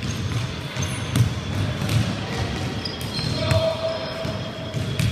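Basketball game in a gym: the ball thudding on the wooden court several times, short high squeaks of shoes on the floor, and players' voices in the hall.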